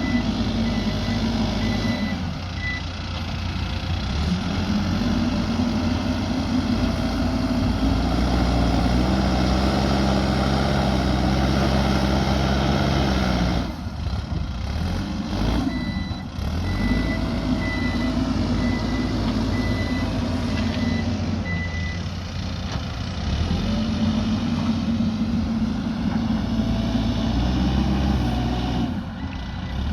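Diesel engine of an earthmoving machine working, its pitch rising and falling under load. A reversing alarm beeps in an even series at the start, again in the middle and again near the end.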